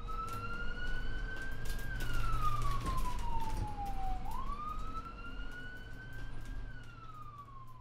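Ambulance siren on a slow wail: the pitch climbs, sinks, sweeps back up about four seconds in, then falls again as it fades away. A steady low hum runs underneath.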